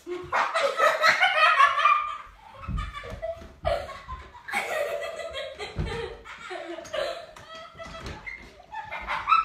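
Laughter, loud for the first couple of seconds and then going on more quietly on and off.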